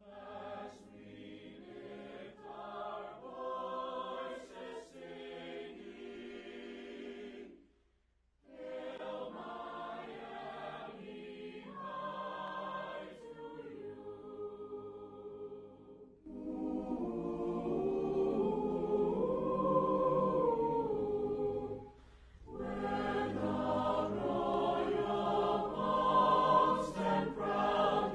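A choir singing, with a short break about eight seconds in; the singing grows louder about halfway through.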